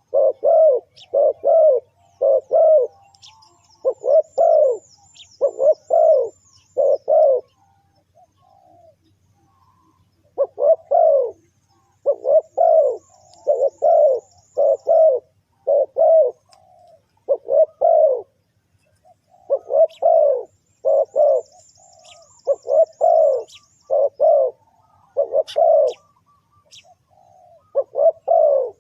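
Spotted dove cooing: repeated phrases of two or three short, low coos, with gaps of a second or two between phrases. A small bird's faint, high twittering comes in now and then.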